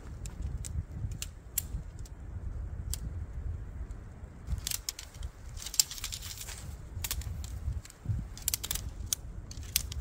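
Wind buffeting the microphone with a steady low rumble, over scattered clicks and rattles from camping gear being handled, bunched about halfway through and again near the end.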